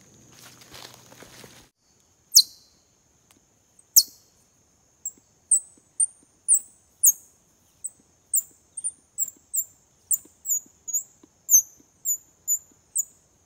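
Footsteps rustling through dry leaf litter at the start. Then a bird calls overhead: two loud, sharp chirps sweeping steeply down, followed by a run of short, high, down-slurred notes that come faster toward the end, about two a second. A thin, steady high whine runs underneath.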